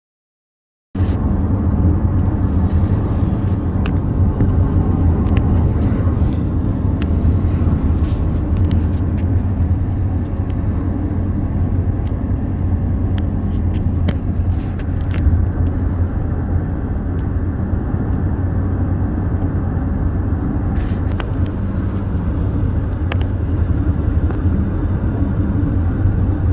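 Steady low rumble of a car's engine and road noise heard inside the cabin, starting abruptly about a second in, with a few light clicks.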